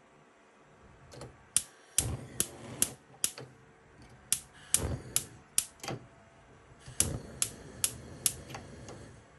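Gas stove burner's electric spark igniter clicking repeatedly, about fifteen sharp clicks in three groups, with a soft rushing of gas between them. The burner lights near the end.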